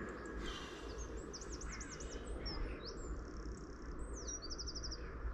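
A small songbird singing: quick high chirps, a run of rapid up-and-down notes about a second in and a fast trill near the end, over a steady low background rumble.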